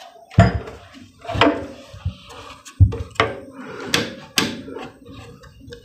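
A series of knocks and clicks, about six in all, as hands handle a compact inverter welding machine's casing and front-panel controls.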